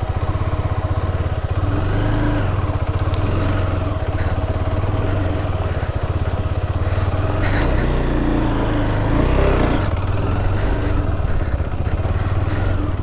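KTM 390 Adventure's single-cylinder engine running as the motorcycle is ridden, its speed rising and falling a little a couple of times.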